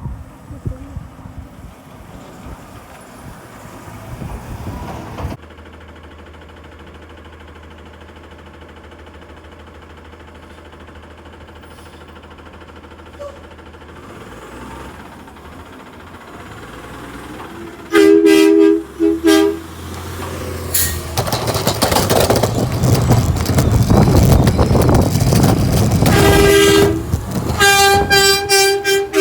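Garbage truck horn honking in short two-tone blasts: a quick burst of honks about two-thirds of the way in, then a run of honks near the end. Between the bursts the truck's engine runs loud, and earlier there is a steady low engine hum.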